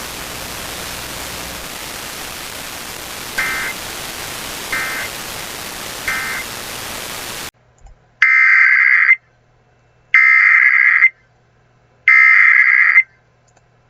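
Weather radio static hiss with three short EAS/SAME digital data bursts in it, about a second and a half apart: the end-of-message tones closing a warning. After a sudden cut to silence come three loud, screechy SAME header bursts about a second long and two seconds apart, the data tones that open the next alert, a tornado warning.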